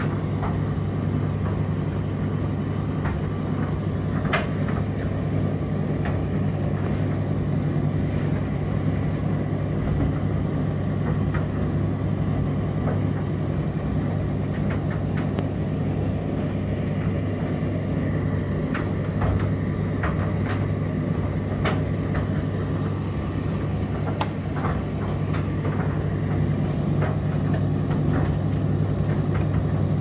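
Indesit IDC8T3B condenser tumble dryer running: a steady low hum from the motor and turning drum, with scattered light clicks through it.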